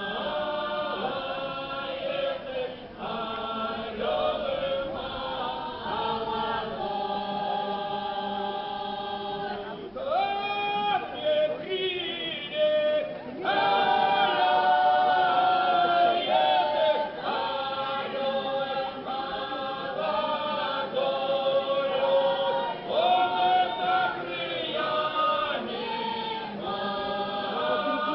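Semeiskie folk ensemble singing a round-dance song a cappella in several voices, holding long drawn-out notes, with a brief higher passage about ten seconds in.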